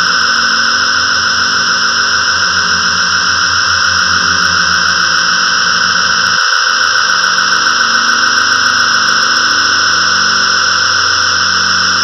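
GarageBand's 'Thunderous Ambience' synth patch sounding a sustained low chord under a steady, loud wash of storm-like noise. The low notes pulse quickly, and about six and a half seconds in the chord changes to a new one.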